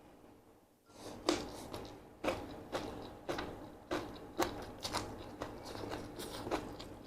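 Close-up mouth sounds of eating Korean sweet-potato glass noodles: wet chewing smacks about twice a second, beginning about a second in.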